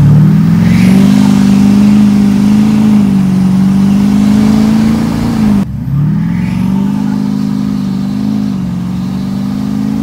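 2014 Duramax LML 6.6-litre V8 turbodiesel accelerating from low speed, heard from inside the cab: the engine note rises, holds, and drops as the transmission shifts up about three seconds in. It breaks off abruptly about halfway through and a second pull rises from low again, with the throttle-sensitivity booster at its highest level, and shifts up once more near the end.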